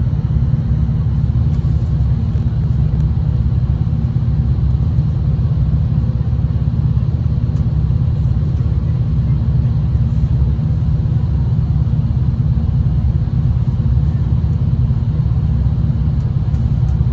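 Steady low rumble of a V/Line diesel train running along the line, heard from inside the carriage.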